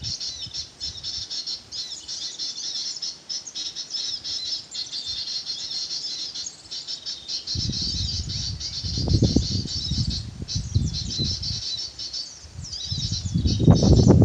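Dense, continuous high-pitched chirping and twittering of small songbirds, heard during bird luring. Bursts of low rustling noise come in about halfway through and again near the end.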